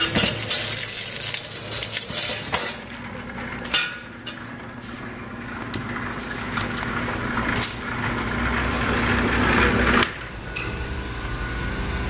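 Electric motor of an LD-007 scrap wire stripping machine running with a steady hum, under scattered metallic clinks and knocks as stripped copper cable and insulation are handled. The sound drops in loudness about ten seconds in.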